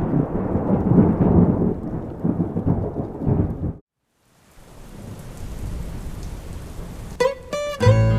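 A loud, low rumble of thunder over rain that cuts off abruptly. After a brief silence, a steady hiss of rainfall fades in. Near the end, acoustic guitar notes begin over the rain.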